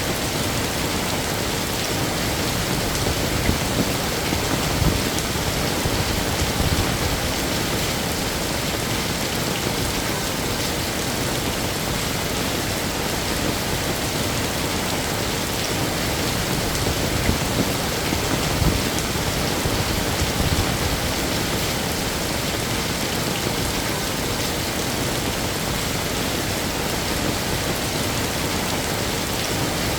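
Heavy rain falling steadily in a dense hiss, with a few brief louder swells.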